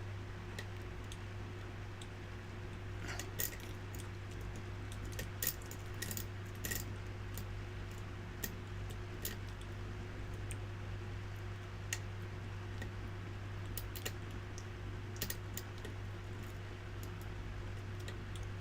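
Lock pick and tension wrench working the pins of a padlock: scattered small metallic clicks and ticks, irregular and in clusters, over a steady low hum.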